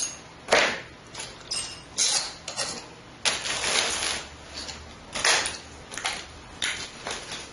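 Irregular clicks, taps and rustles of hands handling computer cables and small plastic connectors, about a dozen in a few seconds.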